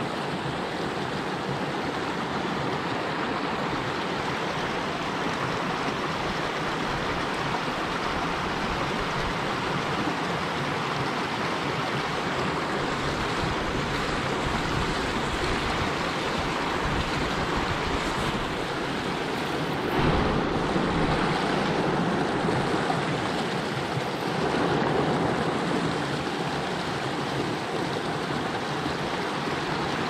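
Shallow rocky mountain stream rushing and splashing over boulders and small cascades, a steady rush that gets louder for a few moments twice in the second half.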